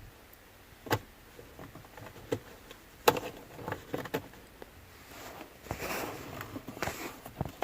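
Scattered light clicks and knocks, then a few seconds of rustling and handling, from hands working at the trim panel around a car's ignition switch.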